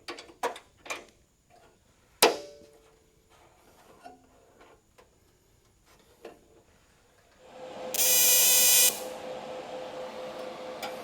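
A few sharp metal knocks and clanks, the loudest about two seconds in with a short ring. About seven and a half seconds in a welder starts to hum and hiss, with a loud buzz for about a second, but no arc strikes because the ground clamp is not connected.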